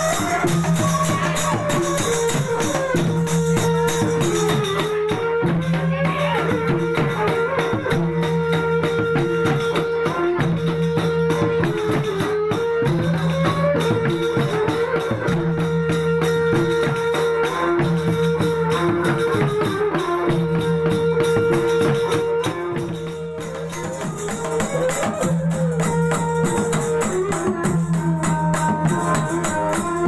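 Sasak gendang ensemble of children playing a cilokak piece: hand-beaten double-headed gendang drums with jingling cymbals, under a held, wavering melody line. The music dips briefly in loudness about three quarters of the way through.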